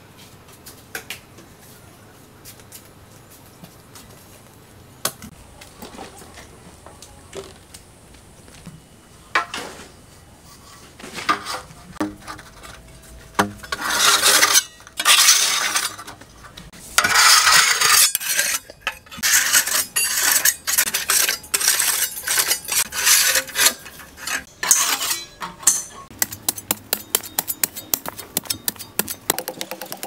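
Metal tools scraping and clinking against hard, rubbly ground. A few scattered clicks at first, then from about halfway repeated loud scrapes of about a second each, some with a metallic ring, and a quick run of light clicks near the end.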